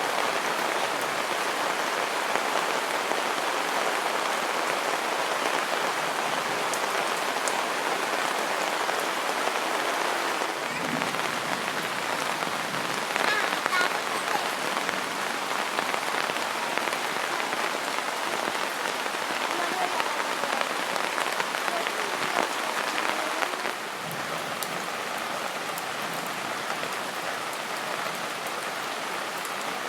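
Steady rain falling and pattering on surfaces, with scattered close drops ticking through it; it eases slightly about three-quarters of the way through.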